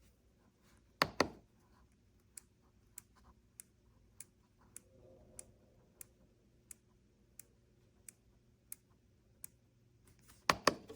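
Keys of an RK Royal Kludge S98 mechanical keyboard, fitted with new switches and keycaps, pressed one at a time. Two loud clacks come about a second in, then a slow, even run of single keystrokes about every 0.6 s, and a quick cluster of loud clacks near the end.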